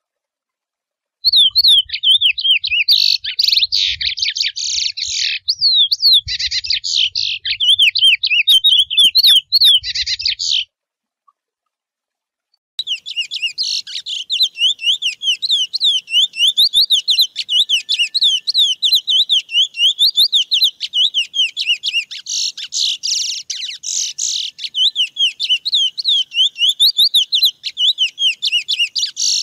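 Male curió (chestnut-bellied seed-finch) singing its wild 'mateiro' song, a fast, warbling run of whistled notes that rise and fall. It sings in two long bouts: the first starts about a second in and breaks off about ten seconds in, and the second resumes a couple of seconds later and runs on without a pause.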